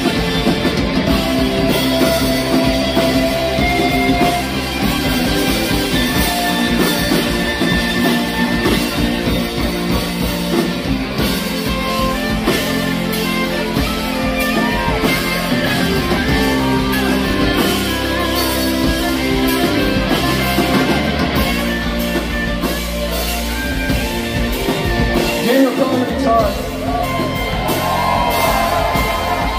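Live rock band playing loudly and without a break: two electric guitars, bass guitar and drum kit.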